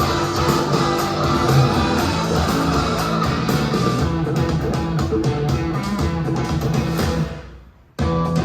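Guitar-led music played through a JBL Nano K5 studio monitor speaker and picked up by a phone microphone. The track fades out about seven seconds in, and a new track with sharp beats starts near the end.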